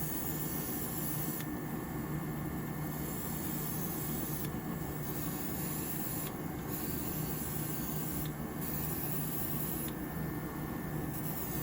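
Steady hiss of leather dye being sprayed onto a shoe, over a low, even hum.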